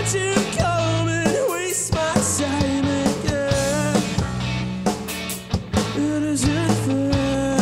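Live rock band playing: a male singer sings over electric guitar, electric bass and drums.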